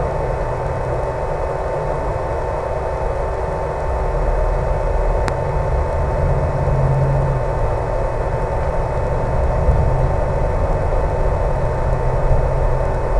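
Electric motor and propeller of a HobbyZone Super Cub RC plane running steadily in flight, a constant whine over wind rumble, with a single click about five seconds in.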